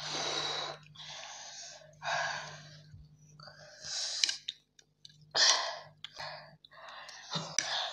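Heavy breathy exhales and sighs, air puffed out over and over against the burn of very spicy ramen, each puff under a second long, with a few light clicks in between.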